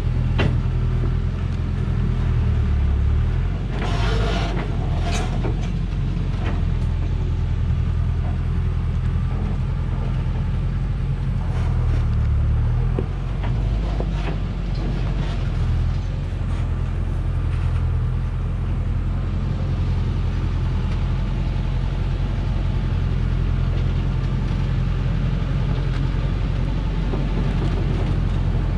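Heavily loaded Dongfeng log truck's diesel engine running at low revs as the truck crawls along a rough dirt track, its pitch shifting a few times. A short hiss about four seconds in.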